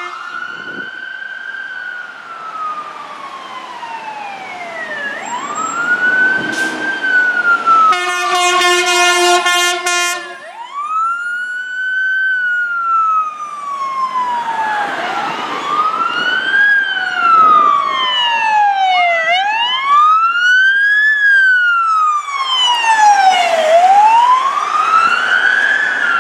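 Sirens of several fire apparatus responding code 3, wailing in overlapping rising-and-falling sweeps. A steady horn blast sounds for about two seconds, about eight seconds in.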